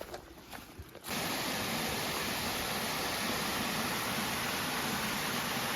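Steady, even rush of falling water from a waterfall. It starts abruptly about a second in, after a quieter moment with a few light clicks.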